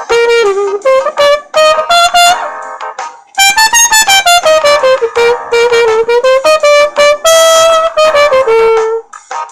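Trumpet played with an improvised mute: a melody of quick tongued notes, a short break about three seconds in, then a second phrase with some held notes.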